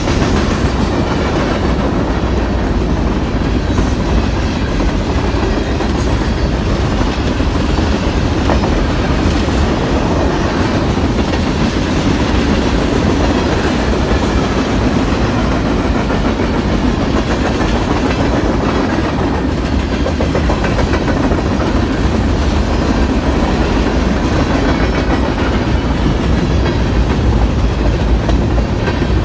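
Freight train's covered hoppers and boxcars rolling past at steady speed: a loud, even rumble with a continuous clatter of steel wheels on the rails.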